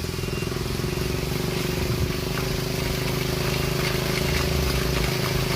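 Engine of a homemade aircraft running at a steady speed, its pitch holding even and growing slightly louder partway through.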